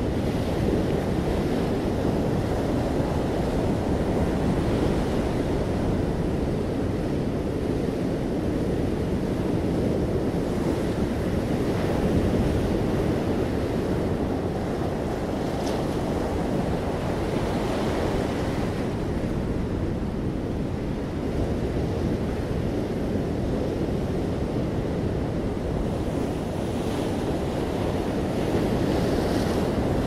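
Ocean surf breaking on the rocks and washing up a sandy beach: a steady roar, with a hissing wash that swells every few seconds as each wave runs in.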